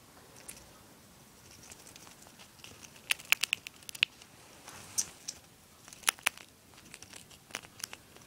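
Hamster gnawing and cracking the papery shell of a monkey nut (peanut in its shell): scattered sharp cracks and crinkles, with a quick cluster about three seconds in.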